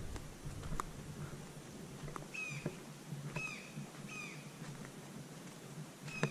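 An animal calling: three short calls about a second apart, each dropping in pitch, near the middle.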